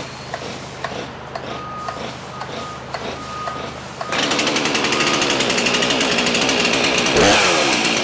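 Stihl MS 362 C-M two-stroke chainsaw being pull-started from the M-Tronic starting position. Small clicks of the starter cord come first, then the engine catches about four seconds in and runs with a fast, buzzing beat. Near the end the engine note swoops and settles a little quieter.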